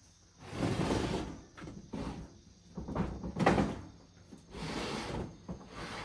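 Japanese sliding storm shutters (amado) being pushed open along their tracks: a series of rumbling slides and knocks, the loudest about three and a half seconds in.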